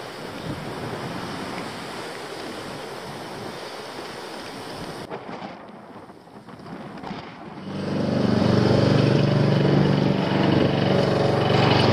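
Wind noise rushing over a head-mounted camera's microphone while cycling. About eight seconds in, a much louder, steady, pitched drone comes in and keeps going.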